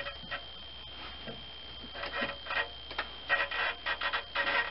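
GM Ecotec 2.2 L engine being turned over slowly by hand, spark plugs out, through its compression stroke: bursts of quick clicking about two seconds in and again from about three seconds on. A steady high-pitched whine sits underneath.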